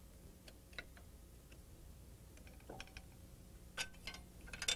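Scattered small clicks and taps as sheet-metal pieces, gauges and a press bar are set in place for a hinge bend, the loudest coming near the end, over a faint steady hum.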